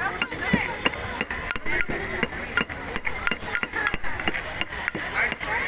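Jujubes being mashed by hand for boroi vorta: repeated sharp knocks and clinks at an uneven pace, several a second.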